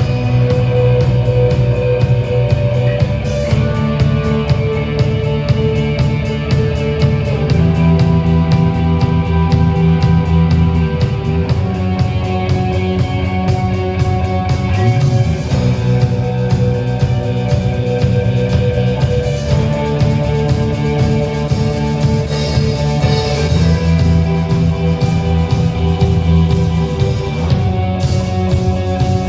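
A rock band playing an instrumental passage: guitar holding sustained chords that change every few seconds over bass and a drum kit with steady cymbals.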